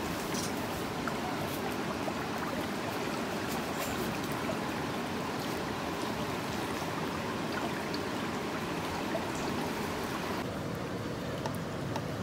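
Steady rushing noise with a few faint clicks, its tone changing about ten seconds in.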